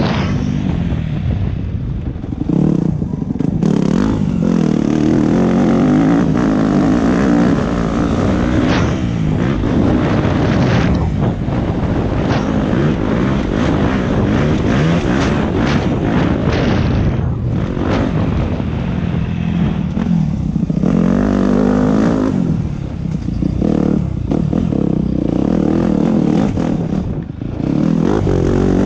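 Yamaha dirt bike's engine being ridden hard, revving up and falling back repeatedly, with brief drops in throttle several times along the way.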